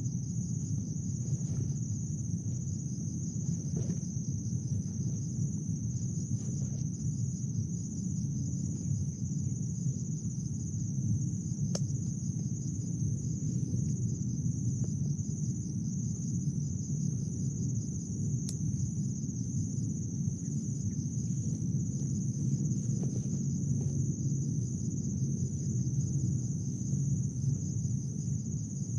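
Crickets chirring steadily at a high pitch in an even, fast pulse, over a low steady rumble.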